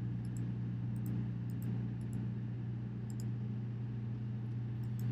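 Computer mouse clicking a handful of times, light ticks, some in quick pairs, over a steady low electrical hum.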